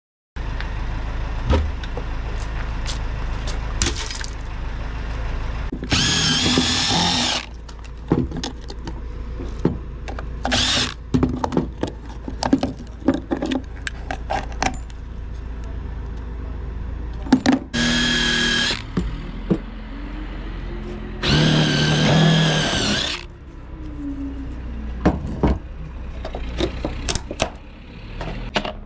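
Cordless power driver backing out the bolts of a boat's engine bracket in four separate bursts of high motor whine, with clicks and metal knocks of the bit, bolts and bracket between them.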